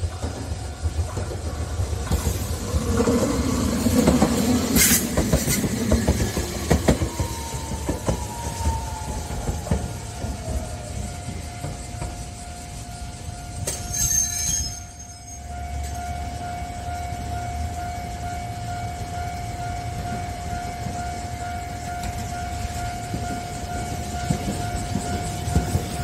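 Kagoshima City tram running along the track, a whine from it falling in pitch as it passes. Later, a level-crossing warning signal sounds in a steady, repeating tone while a tram approaches.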